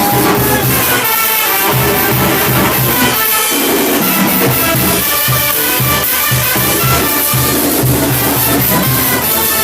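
Cumbia band music with a steady, repeating bass pattern, drums and shaker under pitched instrument lines.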